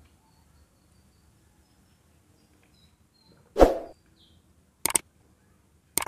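Subscribe-button overlay sound effect: after a few seconds of near quiet, a short whoosh, then a quick double mouse click about a second later, and another click at the very end.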